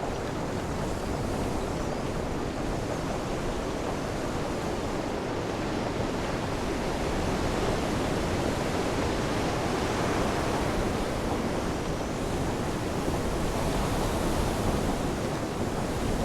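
Steady rush of wind and sea water around a small boat running at sea, with no clear engine note or distinct wave strikes.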